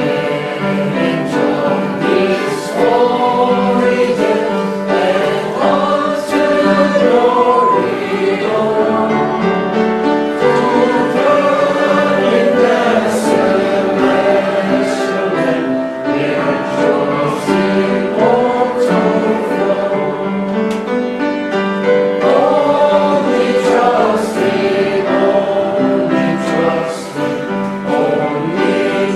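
A group of voices singing a hymn together, steady and in full voice throughout.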